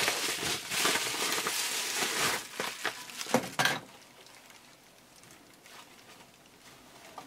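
Plastic bubble wrap crinkling and crackling as hands pull it off a camera body, ending about four seconds in; after that only faint, soft rustling of a cloth-like wrapping.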